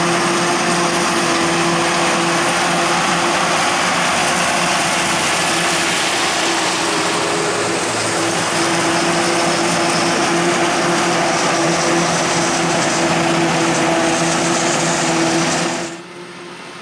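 Heavy farm machinery running steadily, a constant engine hum over broad mechanical noise. It drops abruptly to a much quieter level near the end.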